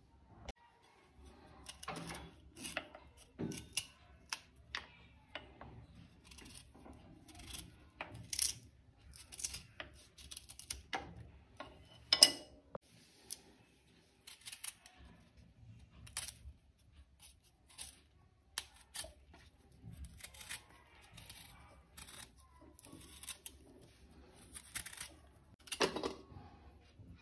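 Irregular clicks, taps and clatter of kitchen utensils and dishes being handled during food preparation, with one sharp knock about twelve seconds in.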